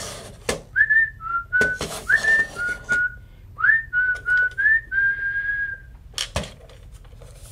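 Someone whistling a short tune: a string of brief notes, several sliding up into pitch, ending on a longer held note about three quarters of the way through. Sharp clicks and knocks from the plastic toy bank being handled run alongside.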